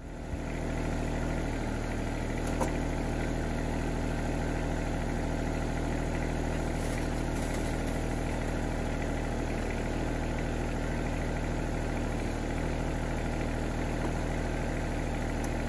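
Yanmar SA324 compact tractor's three-cylinder diesel engine running steadily while the loader hydraulics are worked from the joystick to lift the front loader off its mounting brackets.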